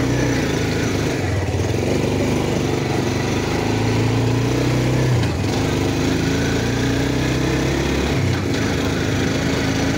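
ATV (four-wheeler) engine running steadily while being ridden, heard from on board. Its note drops briefly three times as the throttle eases.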